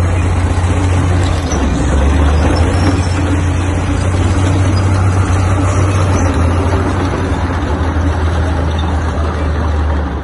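IS-7 heavy tank's V-12 diesel engine running loud and steady as the tank drives past at close range, a deep continuous drone under a broad rumble.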